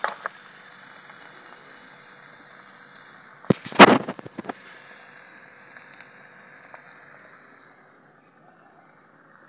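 Ghee sizzling in a steel kadai of finished lauki halwa. About three and a half seconds in comes a short, loud clatter of metal as the kadai is lifted off the stove. After that only a fainter hiss remains.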